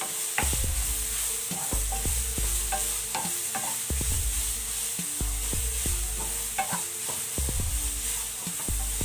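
Grated carrot sizzling as it fries in ghee in a nonstick pan, stirred and scraped continuously with a wooden spatula, with many small knocks of the spatula against the pan.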